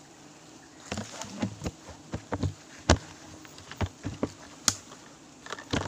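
Footsteps crunching and snapping through dry leaf litter and twigs on a forest floor, in irregular steps starting about a second in, the loudest crack about three seconds in.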